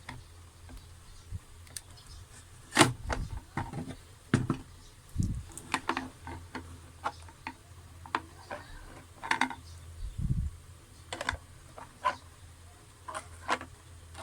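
Irregular light clicks and taps of small hard plastic parts being handled and fitted together, with a few duller knocks, over a faint steady low hum.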